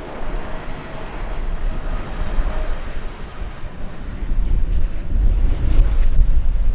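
An airplane's engines running, a steady rushing noise with a faint whine, mixed with heavy gusts of wind buffeting the microphone that grow louder in the second half.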